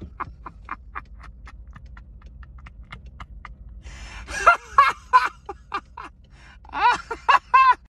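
A man laughing hard in fits: a run of rhythmic "ha" pulses that trails off into quieter gasping, then two louder bursts of laughter about four and a half and seven seconds in.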